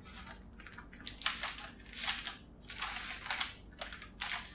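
Parchment paper crinkling and rustling in a handful of short bursts as hands grip and lift its edge under a baked sponge-cake sheet.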